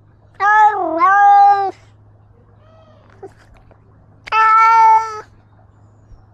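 Domestic cat meowing loudly, right at the microphone of the camera it wears. There are two meows: a long one that dips in pitch and climbs back, then a shorter, steadier one about four seconds in.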